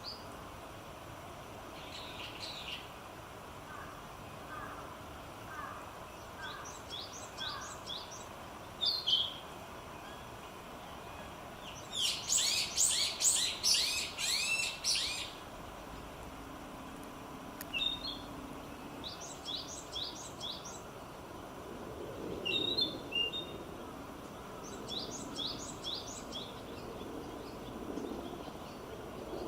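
Narcissus flycatcher singing: short phrases of quick, high whistled notes repeated every few seconds, with the longest and loudest phrase near the middle. Fainter, lower-pitched bird notes sound in the first few seconds.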